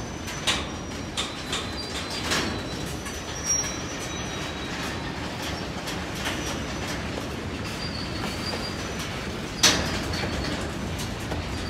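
Covered hopper cars of a slow freight train rolling by: a steady rumble of wheels on rail with a faint high wheel squeal, broken by sharp metallic knocks, several in the first few seconds and the loudest near the end.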